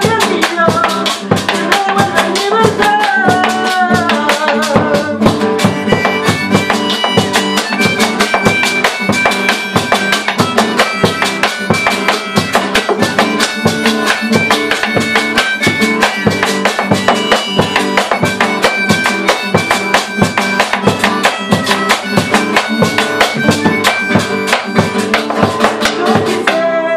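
Argentine folk instrumental: a strummed nylon-string guitar and a bombo legüero beaten steadily with two sticks, with a güiro scraping along. From about six seconds in, a neck-rack harmonica carries the melody in held, stepping notes.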